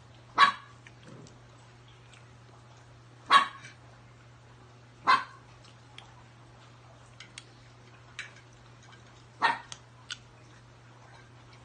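A dog barking off and on: four single short barks a few seconds apart, over a steady low hum.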